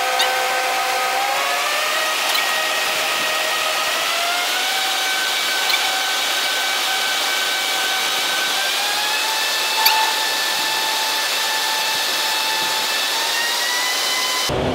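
A bank of twelve 700-horsepower wind-tunnel fans blowing a steady rush of air, with a fan whine that steps up in pitch several times as the wind speed is raised from about 35 to 73 mph. A light knock about ten seconds in.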